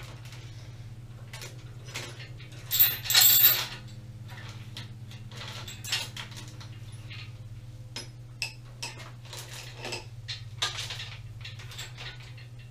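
Metal tools and lathe parts clinking and clattering as they are handled, a scatter of sharp clinks with the loudest clatter about three seconds in. A steady low hum runs underneath.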